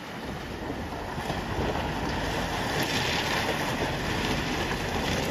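Mahindra Bolero SUV driving through a shallow stream over river stones: water splashing around the tyres and stones crunching, over the engine's noise, growing louder as it comes closer.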